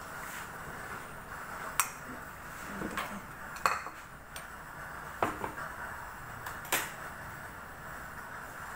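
About half a dozen sharp clinks and knocks of crockery being handled and a white bowl set down, over the steady hiss of a lit gas burner.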